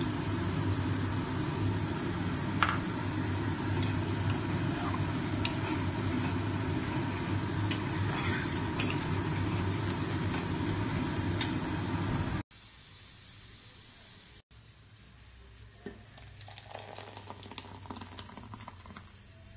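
Raw-mango chutney cooking in a steel pot, stirred with a metal spoon: a steady sizzling, cooking noise with scrapes and occasional sharp clinks of the spoon against the pot. About twelve seconds in it cuts off abruptly, leaving a much quieter stretch with a few light clinks.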